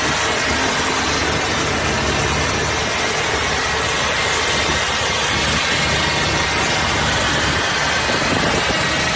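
Several farm tractors' diesel engines running steadily under load while towing a stuck semi-trailer truck through mud. The level stays even, with no revving or sudden events.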